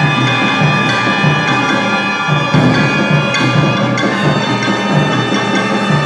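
Chinese orchestra playing a loud full-ensemble passage, with many held notes over a regular low beat and percussion strokes.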